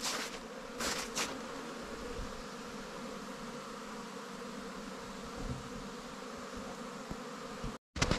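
Honeybees buzzing steadily as they fly around their hives, the colonies' first flights of the season after winter. Two short rustling noises come in the first second or so.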